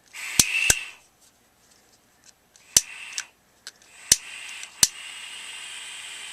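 Dremel Versatip butane soldering iron being lit: sharp igniter clicks with short spurts of gas hiss, five clicks in all. From about four seconds in a steady hiss holds as the torch catches and stays lit.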